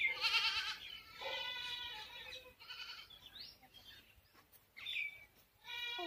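Farm animals calling: several drawn-out, wavering cries with short rising chirps between them.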